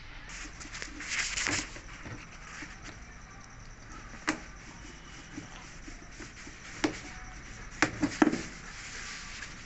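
Handling noises during repair work: a brief rustling scrape about a second in, then sharp knocks, with three close together near the end.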